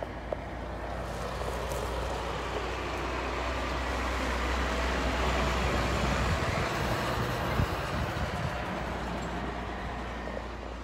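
Heavy dump truck driving past on the road below: diesel engine rumble and tyre noise swelling to a peak about six seconds in, then fading away as it goes.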